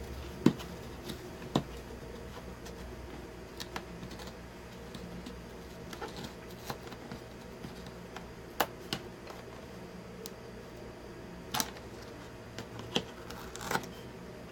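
Scattered small plastic clicks and taps from hands working inside an opened laptop, unplugging the screen's cable connectors, over a low steady hum.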